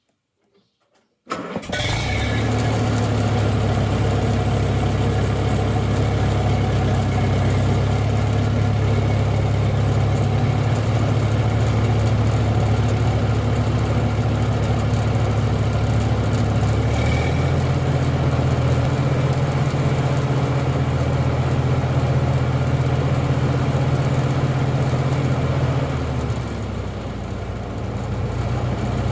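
Vehicle engine starts up suddenly about a second in and runs steadily, rising a little in pitch about halfway through and easing off near the end.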